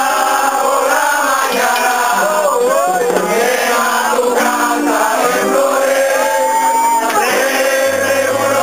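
A crowd of partygoers singing a parranda song together, loudly and without pause, backed by a pandero hand drum and a brass horn.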